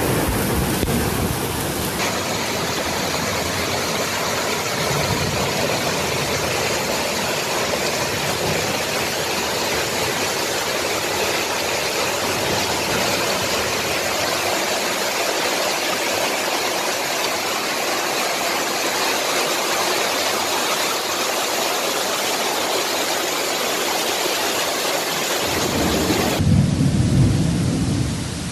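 Heavy rain pouring down, a steady even hiss. Near the end it cuts to a lower, louder rush that then fades.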